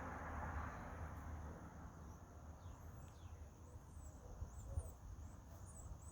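Faint, high, short chirps of baby birds: a few thin falling notes near the middle, then a quick run of chirps near the end, over a low rumbling background that fades in the first second or two.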